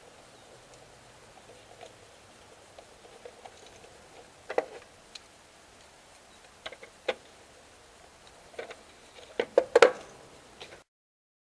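Scattered small clicks and taps from hands handling doorbell wiring, a few spread out and a quick cluster near the end, which is the loudest part. The sound then cuts off abruptly.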